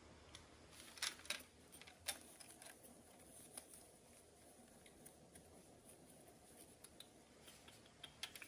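Near-quiet room with a few sharp clicks and taps about one and two seconds in, then scattered light ticks. These are handling sounds as a baby monkey's plastic milk bottle is set down on the mat and the monkey is picked up.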